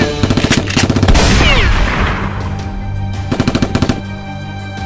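Rapid bursts of automatic gunfire sound effects over action background music: a burst in the first second and another about three and a half seconds in.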